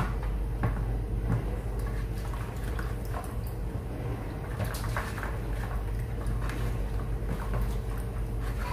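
A spoon stirring dry yeast and sugar into lukewarm water in a bowl to dissolve the lumps: scattered light clinks and swishes of liquid, over a steady low hum.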